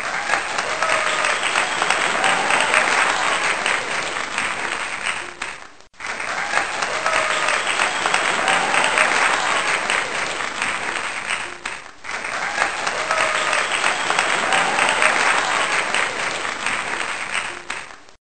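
Applause with crowd cheering, a stretch of about six seconds repeated three times with a brief dip between repeats.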